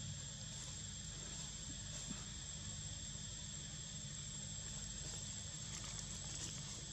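Insects singing in the trees: a steady, unbroken high-pitched drone over a low rumble, with a few faint ticks near the end.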